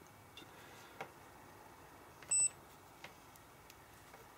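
Digital multimeter's continuity tester giving one short, high beep about two seconds in, the sign that the two stator winding leads being probed are connected. A few faint clicks of the test probes touching the terminals.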